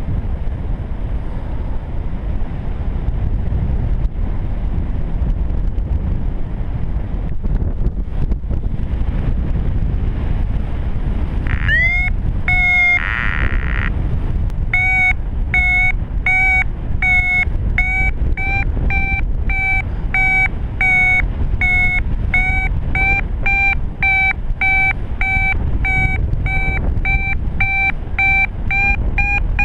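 Wind rushing over the microphone in flight. About twelve seconds in, a paragliding variometer starts beeping: a quick rising chirp and a held tone, then steady beeps about twice a second with their pitch creeping up near the end, the vario's signal that the glider is climbing in lift.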